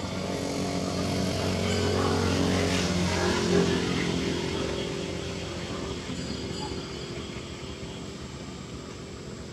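A motor vehicle's engine running as it passes, growing louder to a peak a few seconds in, then fading away.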